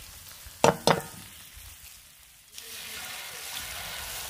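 Meat sizzling in a frying pan over a campfire grate while a nylon spatula stirs it, with two sharp knocks about a second in. The hiss then turns louder and denser as egg fries in hot oil.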